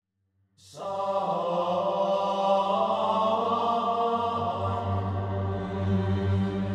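Background music: a droning choral chant of sustained tones, coming in under a second in, with a low hum swelling about four seconds in.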